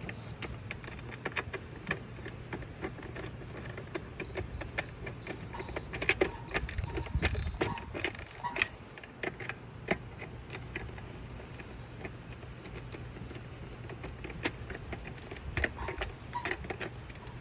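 Irregular small clicks, taps and metallic rattles of tools and wires being handled as an air-conditioning condenser is wired up, over a steady low hum.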